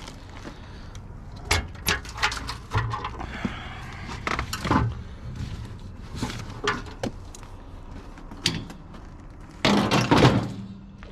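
Scattered sharp knocks and clanks of metal being handled, with a louder clattering burst lasting about a second near the end, over a steady low hum.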